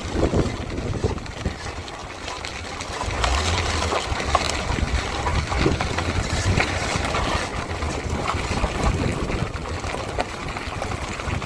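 Metallic grinding from a 2018 Ford Edge's front brake as the car turns, mixed with vehicle running and road noise: the brake's metal backing plate is rubbing on the rotor for lack of clearance.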